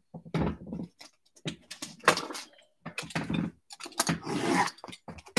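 Sealed cardboard boxes of trading cards being shuffled and slid across a felt-covered table, and fingers picking at a box's plastic wrap: a run of irregular scrapes, knocks and rustles, some with a low rough buzz.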